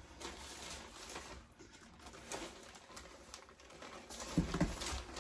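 Plastic packaging crinkling and rustling as a bag is opened by hand, with a short louder low thump or two about four and a half seconds in.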